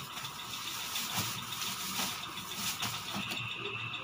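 Steady hiss and background noise picked up by a shop security camera's microphone, with a few faint clicks. A thin steady tone comes in near the end.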